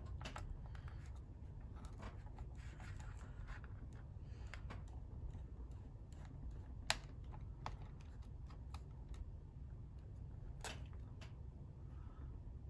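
Small screwdriver working screws out of the underside of a Lenovo ThinkPad T60 laptop: scattered light clicks and scrapes of tool and screws against the case, with a sharper click about seven seconds in and another about ten seconds in.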